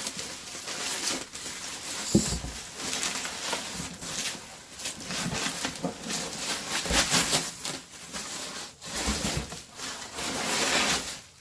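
Plastic packaging and bubble wrap rustling and crinkling as items are handled and pulled out of a box, with a few dull knocks.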